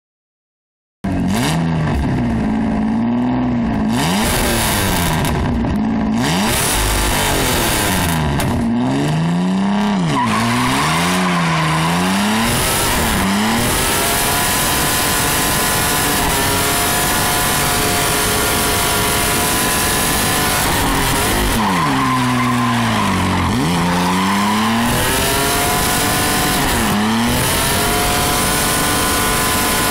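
Straight-piped 1992 Ford Ranger engine revving hard up and down during a burnout, with tires squealing as they spin. The revs swing repeatedly early and late, and hold high with a steady squeal through the middle.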